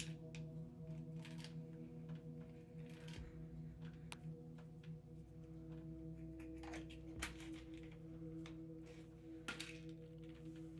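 Quiet, sustained ambient drone of several steady tones, like a singing bowl, with short hissing sounds every second or two.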